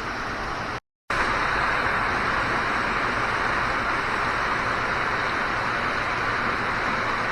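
Heavy rain coming down steadily. The sound drops out completely for a moment about a second in, then comes back louder and brighter.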